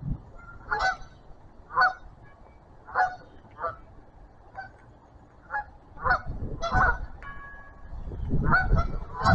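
Geese honking, single calls about once a second with a quicker run of honks near the end, over a low rumble.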